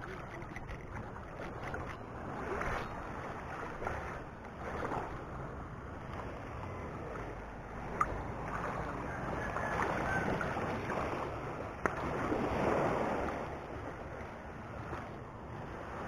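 Small waves lapping and sloshing over a rocky, pebbly shoreline, swelling and fading every couple of seconds, with wind on the microphone. Two sharp clicks, about eight and twelve seconds in.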